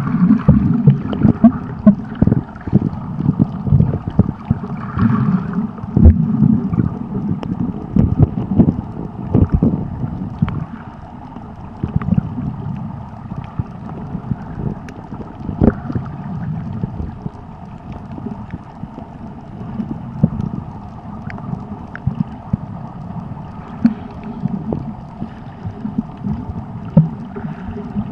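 Muffled water noise heard from a camera held underwater while snorkeling: a low rushing and gurgling of moving water, with irregular knocks and pops. It is louder and busier for the first ten seconds or so, then settles.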